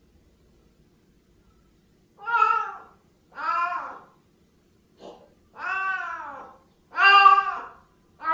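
Siamese cats meowing: after about two seconds of quiet come four long meows about a second apart, each rising and then falling in pitch, with a short faint call between the second and third.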